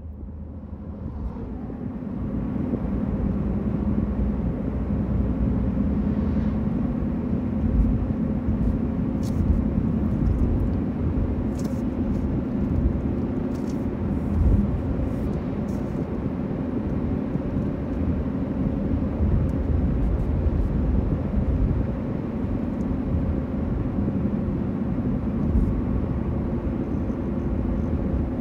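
Car driving along a highway: a steady rumble of road and engine noise, fading in over the first few seconds.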